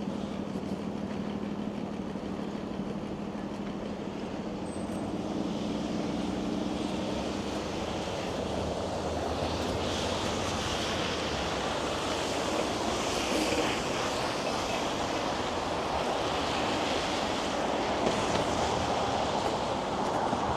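Steady street traffic noise, with a low engine hum in the first seven seconds or so.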